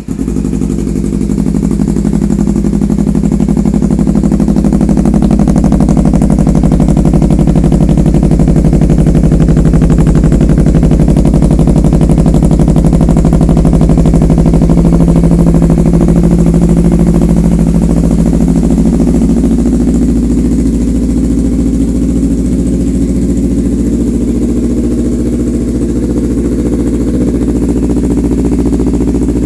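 Kawasaki Ninja sport motorcycle engine running at a steady idle, loud and even, easing slightly about two-thirds of the way through.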